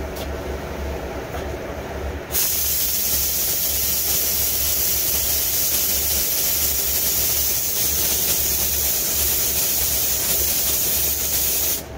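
Gravity-feed paint spray gun spraying the second coat of clear: a steady high air hiss that starts suddenly about two seconds in and cuts off near the end. A low steady hum runs underneath.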